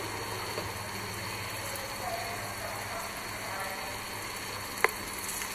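Water sloshing and splashing in a child's inflatable paddling pool as a baby elephant shifts its feet, over a steady low hum. A single sharp click sounds near the end.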